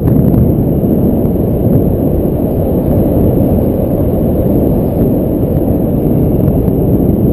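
Wind rushing over the camera's microphone in paraglider flight: a loud, steady low rumble of airflow.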